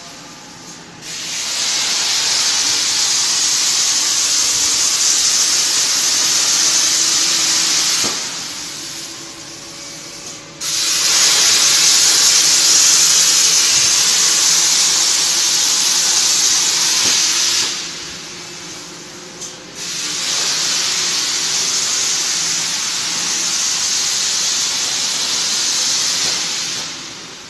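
CNC plasma cutting torch hissing steadily as it cuts, in three runs of about seven seconds each separated by short pauses.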